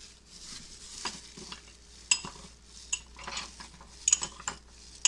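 Metal spoon stirring a thin soy-based dipping sauce in a small ceramic bowl: a soft swirling sound, with a few sharp clinks of the spoon against the bowl in the second half.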